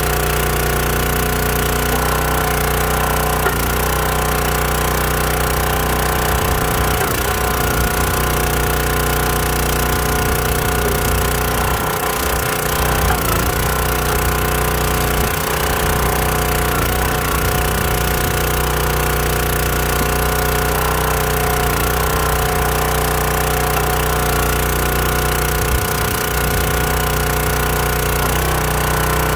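Small gas engine of a Countyline 25-ton log splitter running steadily, driving the splitter's hydraulic pump, with a few brief knocks over it.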